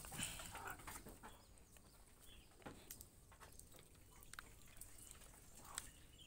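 Near silence, with a few short, faint clucks from backyard chickens and scattered faint clicks.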